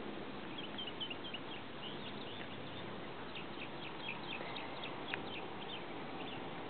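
Birds chirping: quick, short, high notes in an irregular run, over a steady background hiss.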